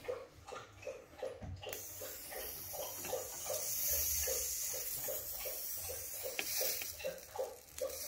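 Fuel cans of a portable space heater being lit with a plasma lighter and catching flame: a steady hiss that starts about two seconds in, with faint soft pulses about three times a second.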